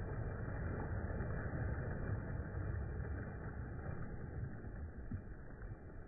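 Small sea waves breaking and washing in over a shore of rounded black stones: a steady, low rush of surf that slowly eases off.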